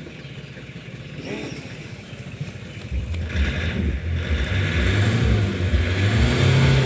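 Tata Safari engine running at the exhaust, then revved about three seconds in and held at higher revs, with a louder, uneven low exhaust note. The muffler has just been flushed out with a water jet.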